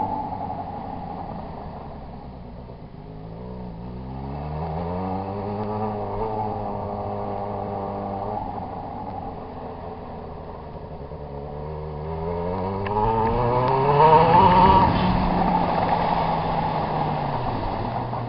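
Yamaha XJ6 motorcycle's 600 cc inline-four engine revving up and down, running loud. It eases off, climbs and holds, drops back, then climbs again to its loudest about fourteen seconds in before easing back down.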